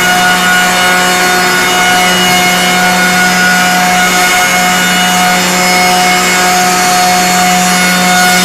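Door sizing machine running loudly: its saw motors hum and whine steadily while a door panel is fed between the two cutting heads and its edges are trimmed.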